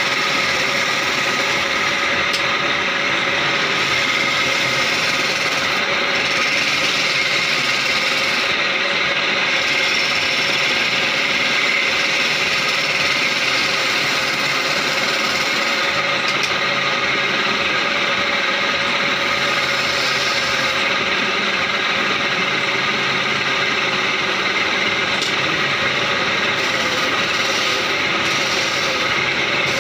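Wood lathe running steadily while a hand chisel cuts into a spinning wooden furniture leg: a continuous scraping of the cut over the steady tone of the machine.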